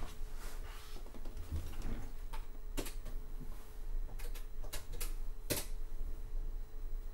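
Typing on the TRS-80 MC-10 computer's keyboard: irregular key clicks, a few louder presses among them, over a faint steady hum.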